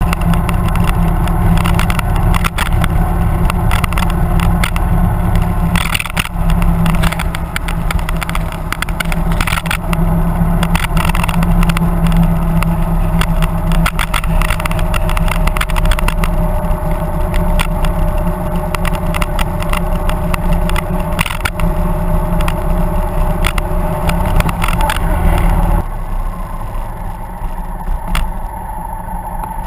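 Motorcycle engine running at road speed with heavy wind buffeting on the bike-mounted microphone. About 26 seconds in it slows and the sound drops to a quieter engine running.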